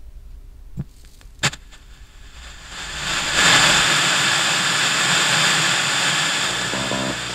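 Two sharp clicks, then a loud, steady hiss of static that swells in over about a second. Music with a repeating pattern starts near the end.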